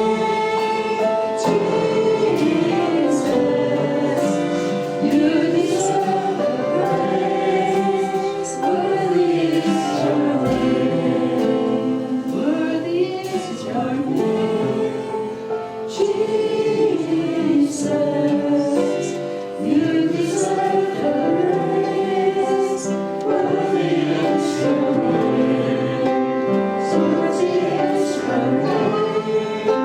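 A group of voices singing a worship song together, steady and sustained without a break.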